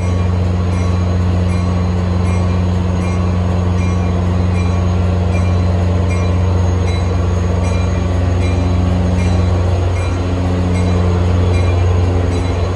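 MTA Metro-North F40PH diesel locomotive standing still with its engine running at a steady speed, a loud, even drone.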